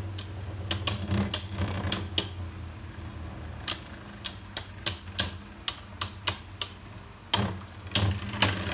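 Two Beyblade Burst tops, a genuine and a counterfeit Vise Leopard, spinning in a plastic Beystadium with a low whir, clacking sharply and irregularly, about twice a second, as they knock into each other.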